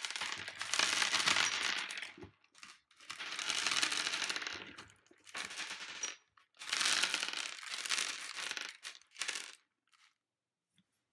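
Candy-coated chocolate sweets clattering against each other and a plastic bowl as hands stir through them, in three bouts of a few seconds each, stopping near the end.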